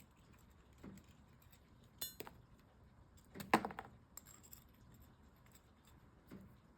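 Rock slabs clinking and knocking against each other as they are handled. There are a few light, ringing clinks: a quick rattle about two seconds in, the loudest clink about three and a half seconds in, and a softer knock near the end.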